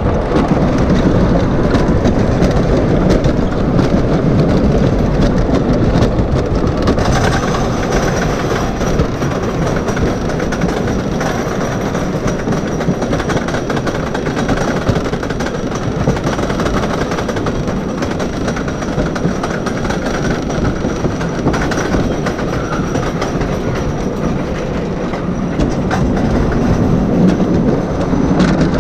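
Wooden roller coaster train running along its track, its wheels rolling on the rails without a break, heard from a seat on board.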